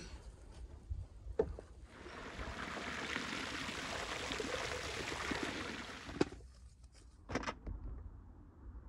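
Water poured from above into a metal colander, splashing over raw goose pieces, starting about two seconds in and running for about four seconds before stopping. A few sharp knocks follow.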